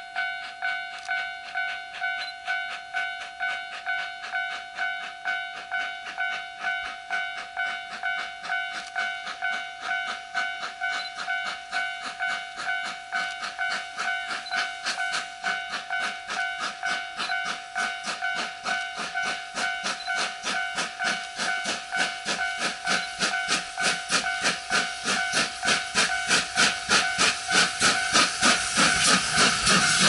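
A level-crossing warning bell ringing in a steady, rapid ding. From about two-thirds in, the chuffing exhaust and steam hiss of the approaching C11-class steam tank locomotive grow louder until it reaches the crossing at the end.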